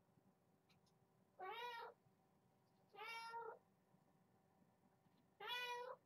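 Kitten meowing three times, each call about half a second long with a slight rise and fall in pitch, spaced about one and a half to two seconds apart.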